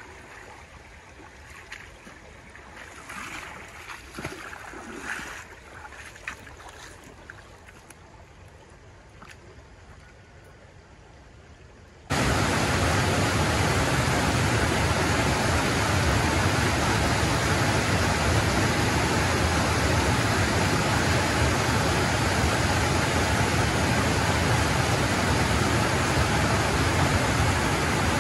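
Water sloshing around legs as someone wades through a shallow, calm river, with a few irregular splashing steps. About twelve seconds in, a sudden cut brings a loud, steady rush of water pouring over a stepped weir.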